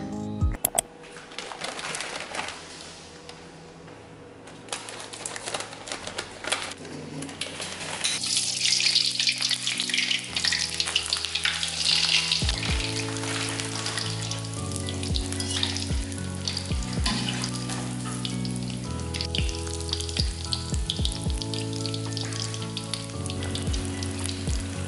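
Battered shrimp deep-frying in hot oil in a steel wok: a dense crackling sizzle that grows much stronger about eight seconds in. Background music joins a couple of seconds later. A glass cup clinks onto its glass saucer at the very start.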